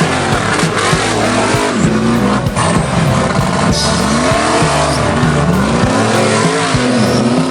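Off-road truck engine revving hard, its pitch rising and falling again and again over a rough noisy wash.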